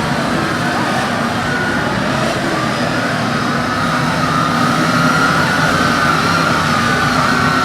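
Police motorcycles' engines running steadily during a drill-riding display, with a thin high tone that wavers slowly up and down from about three seconds in.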